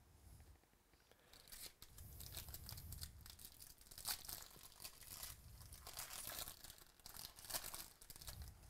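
A foil wrapper of a 2018 Bowman Baseball jumbo card pack is torn open and crinkled by hand. A run of sharp crackling tears starts about a second in and goes on for about seven seconds.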